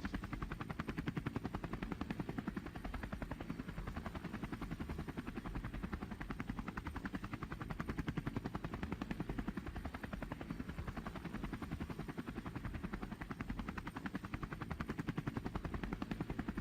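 Helicopter rotor blades chopping in a fast, steady, even beat, with engine noise beneath.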